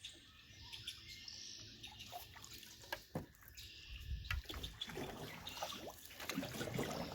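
Canoe paddle strokes in creek water: water trickling and dripping off the paddle, with light splashes and knocks, getting louder about four seconds in.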